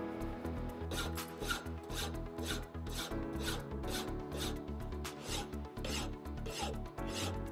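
Hand file stroking across a solid copper hammer head, a dry rasping at about two strokes a second, starting about a second in.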